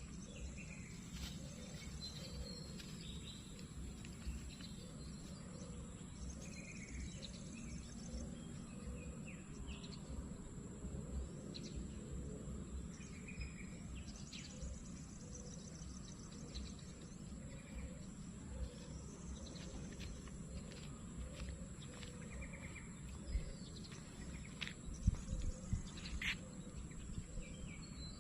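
Outdoor ambience: a steady high insect drone with scattered short bird chirps over a low rumble. A few sharp knocks come near the end.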